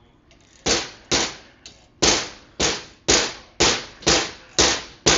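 A small hammer striking metal about nine times, roughly two blows a second, knocking a stuck part out of a vintage dirt bike footrest.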